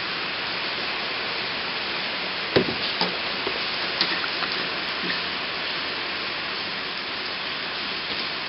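Steady hiss of rain falling. A few light knocks come through it, the loudest about two and a half seconds in, from kittens scampering and pouncing on the floor.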